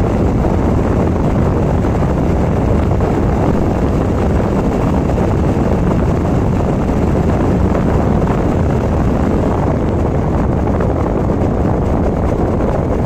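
Bajaj Dominar 400's single-cylinder engine cruising at about 100 km/h, buried under heavy wind rush on the microphone; a steady, unbroken noise.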